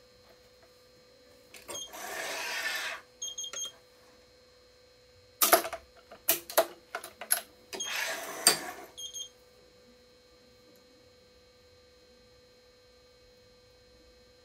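Electronic racket-stringing machine working: the tension head's motor runs for about a second and is followed by a few short electronic beeps, then a run of sharp clicks and clacks, then the motor runs again briefly and beeps. A faint steady hum lies underneath.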